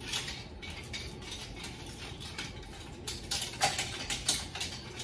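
Empty clothes hangers clicking and clattering against one another and the rack's rail as they are pulled off a garment rack in a bunch, with the loudest rattle about three and a half seconds in.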